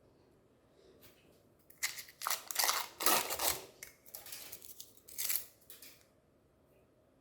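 Chocolate bars being crushed in a meat grinder: a run of crackling, crunching noises starting about two seconds in and stopping about four seconds later.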